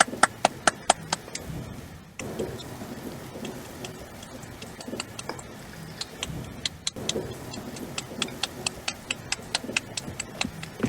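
Hands patting and tapping to imitate rain in a rainstorm game. Quick sharp taps come about five or six a second at the start and again near the end, with a softer, scattered patter in between.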